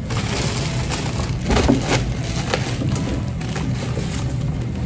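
Background music over plastic wrapping crinkling and cardboard rubbing as a wrapped stroller part is lifted out of its box, with a louder crinkle about a second and a half in.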